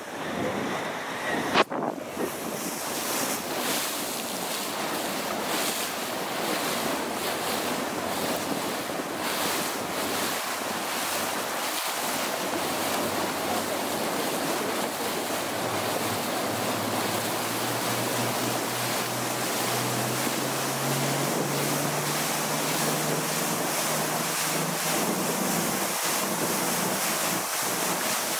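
Motorboat under way: wind buffeting the microphone and water rushing past the hull, with a low engine note that rises in pitch partway through as the boat speeds up and then holds steady. A sharp knock about a second and a half in.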